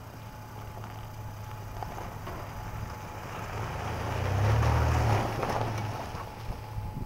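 1996 Toyota Tacoma pickup's engine and tyres on loose gravel as it drives past, growing louder to a peak about four to five seconds in as it passes close, then fading away.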